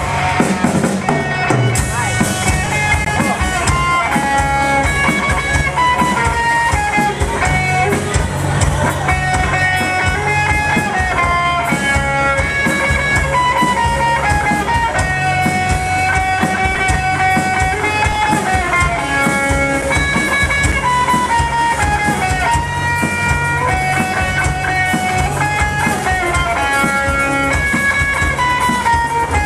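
Instrumental music: a guitar playing a melody over bass and drum kit.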